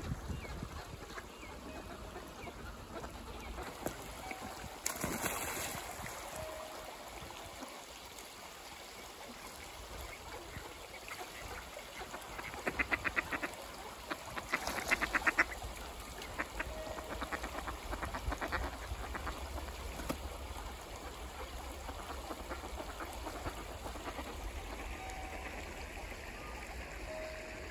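Flock of mallards quacking on a flowing stream, with several runs of rapid quacks about halfway through, over the steady rush of the water.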